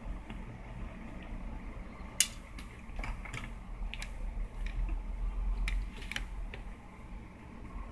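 Scattered small clicks and taps from handling the plastic and metal parts of a dismantled pocket radio, the sharpest about two seconds in, over a low steady hum.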